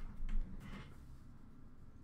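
A few faint taps and rustles of trading cards being handled and set down in the first second, then quiet room tone.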